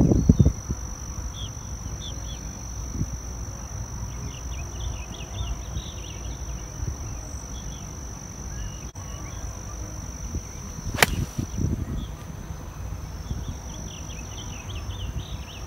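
A single sharp crack of a 7 iron striking a golf ball off the tee, about eleven seconds in. Under it, insects keep up a steady high buzz, with scattered short chirps.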